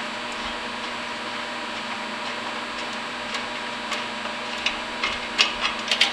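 Light clicks and ticks, sparse at first and more frequent near the end, as a threaded UV flame sensor is unscrewed by hand from an oil burner, over a steady background hum.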